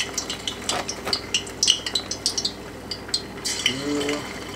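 Battered squid rings dropped piece by piece into hot peanut oil in a saucepan, the oil sizzling with a quick, irregular crackle of sharp pops.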